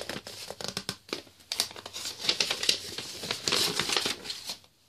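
Paper crinkling and rustling as printed sheets and a card are handled, in uneven spurts, going quiet just before the end.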